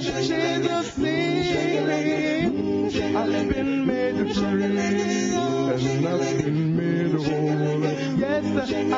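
Men's a cappella gospel group singing in close harmony, several voices holding chords together without instruments.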